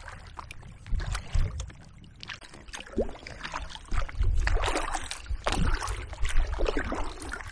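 Kayak paddle strokes dipping and splashing into choppy lake water at a steady stroke, a splash every second or so, with wind rumbling on the microphone.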